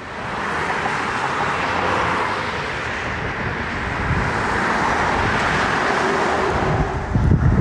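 Road traffic: cars driving past on a city street, a steady wash of tyre and engine noise that swells about half a second in.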